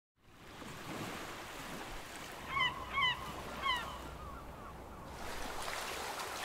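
Steady wash of sea and wind, with a gull giving three short, falling calls midway through.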